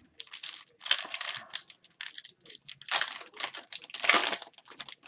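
Foil wrappers of 2021-22 Upper Deck Series 2 hockey card packs being torn open and crinkled by hand, in about four bursts of crackling rustle.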